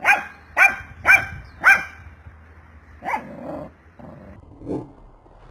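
Dog barking: four sharp barks in quick succession, then two lower, rougher barks.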